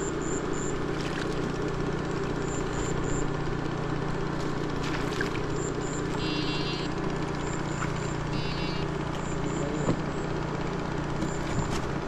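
A small boat engine runs steadily at a low, even pitch while a long-handled net splashes through the water. Short high beeps come in twos and threes, with two brief rapid buzzing patches about six and eight seconds in.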